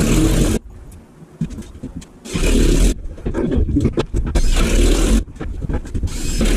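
Cordless drill run against ceiling sheetrock in short bursts of well under a second each, one about every two seconds, with light knocks between them.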